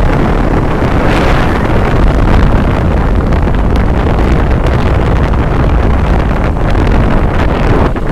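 Wind buffeting the microphone during a ride, a loud, steady rushing with a heavy low rumble.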